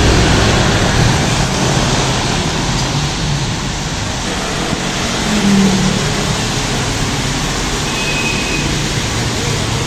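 Road traffic on a rain-wet road. The diesel engine of a Volvo B11R double-decker bus is heard as it drives past and fades within the first second. After that comes a steady hiss of tyres on the wet tarmac from passing cars and motorbikes.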